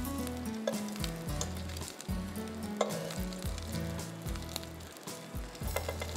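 Oil sizzling steadily in a frying pan as wrapped seekh kebabs fry on low heat, with a few light clicks of a fork against the pan as they are turned.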